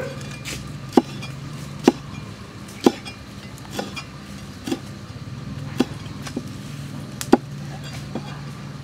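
Cleaver chopping red chilies on a thick round wooden chopping block: about nine sharp knocks of the blade on the wood, roughly one a second.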